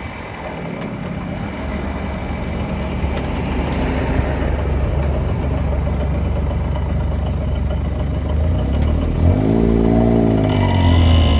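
Yamaha YB-1 small motorcycle engine running under way, growing steadily louder, with the engine note rising and falling in pitch near the end.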